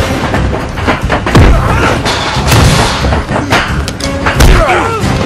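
Movie fight-scene soundtrack: heavy punch and body-impact hits with deep booms, several in a row, over a dramatic film score.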